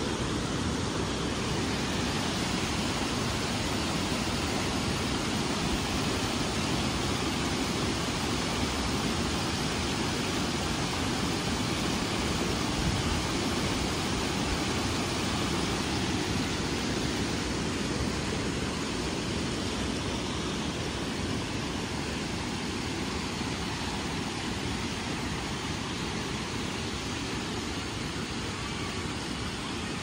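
Steady roar of a large waterfall, a continuous rush of falling water, growing slightly fainter in the last third.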